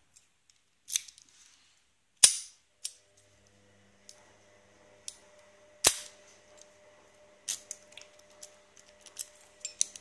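Brass padlock and its key being handled: a run of sharp metallic clicks and snaps, the two loudest about two and six seconds in, then lighter quick clicking near the end.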